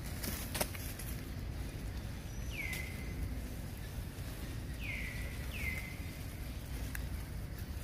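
Forest outdoor ambience with a steady low rumble, and three short whistled calls that drop in pitch and then hold steady: one about two and a half seconds in, then two close together around five seconds in. A couple of sharp ticks, about half a second in and near the end.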